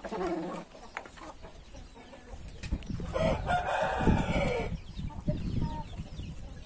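A rooster crows once, a long call beginning about three seconds in and falling in pitch at its end, after a short chicken call at the very start.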